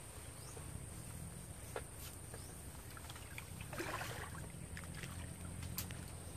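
Faint outdoor ambience: a steady low hum and a constant high-pitched whine, with a few light clicks and a brief rustle about four seconds in.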